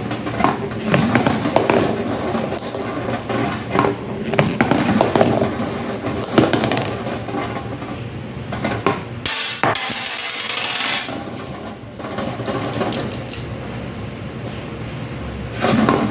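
Marbles rolling along a homemade DIY marble run, a continuous rolling rumble broken by frequent sharp clicks and clacks as they strike the track and each other. A brief hiss about ten seconds in.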